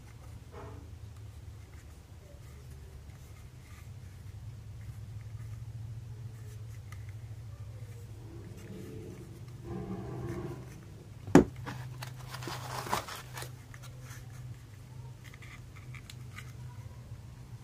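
Handling noises as a cordless drill and its packaging are unpacked: faint rustles and knocks, then a single sharp click about eleven seconds in, followed by a brief scraping rustle. A low steady hum runs underneath.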